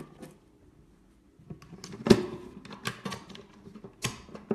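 Handling noise from a paper instruction manual: short rustles and sharp knocks after a quiet first second and a half, the loudest about two seconds in, with a few more near three and four seconds.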